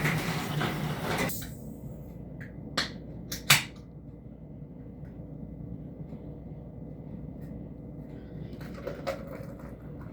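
Outdoor noise that cuts off suddenly about a second in, followed a second or two later by a few sharp clicks and a knock, a door being shut and latched, then quiet indoor room tone with faint taps near the end.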